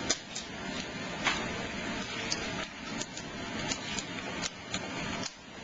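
Empty clam shells clicking against bowls as the clams are eaten: about a dozen short, sharp clicks at irregular intervals over a steady hiss.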